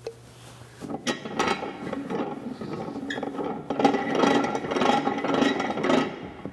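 Dake 1-1/2 B arbor press's handwheel being spun, its freshly oiled pinion shaft and gearing clattering and clicking as it turns. A sharp click comes first; the clattering starts about a second in and stops near the end.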